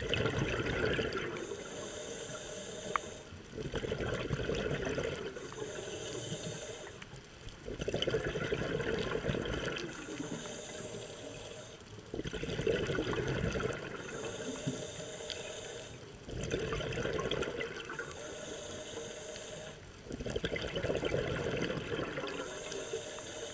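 Scuba diver breathing through a regulator underwater: a rush of exhaled bubbles about every four seconds, six times, with a quieter hiss of inhalation between.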